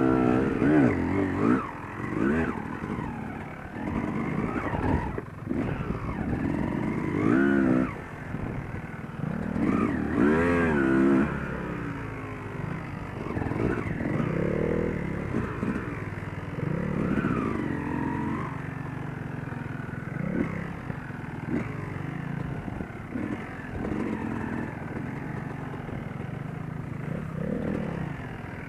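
Yamaha YZ250 two-stroke dirt bike engine revving up and down in repeated throttle bursts, with lower steady running between them.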